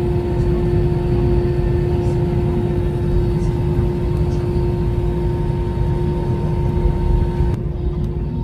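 Airliner cabin noise while taxiing: the steady low rumble of the jet engines and airframe with a constant droning tone, heard from inside the cabin. The sound turns duller near the end.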